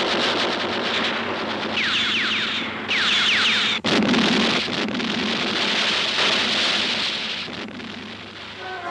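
War-film sound effects of a low-flying plane and an explosion: dense rushing noise with a quick series of falling whistles, then a heavy explosion about four seconds in, its rumble fading toward the end.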